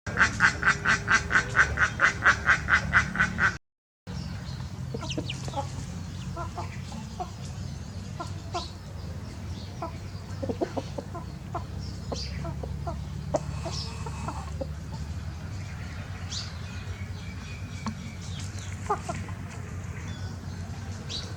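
A flock of birds calling. It opens with a fast, even run of loud repeated calls, about five a second. After an abrupt break it turns to scattered short calls and clucks over a steady low rumble.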